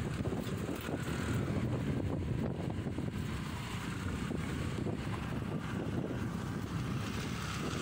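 Wind buffeting the phone's microphone: a steady, low, irregularly fluttering rumble.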